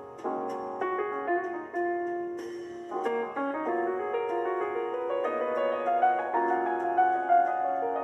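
Background piano music: a slow melody of held, sustained notes.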